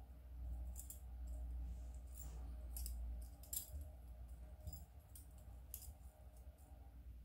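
Irregular light metallic clinks and ticks of a metal wire puzzle's rings, wire loops and small chain knocking together as they are worked in the hands, over a steady low hum.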